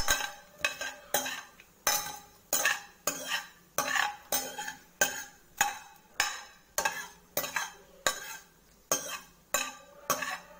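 Metal ladle stirring a tempering of mustard seeds, dried red chillies and curry leaves in hot oil in a kadai, scraping and knocking against the pan in a steady rhythm of about one and a half strokes a second, each with a short metallic ring.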